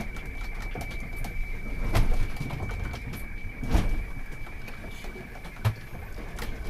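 High steady tone of an HF radio weather-fax transmission, heard faintly from earbuds plugged into a shortwave receiver as the fax is being received. Three short knocks come about two, four and five and a half seconds in.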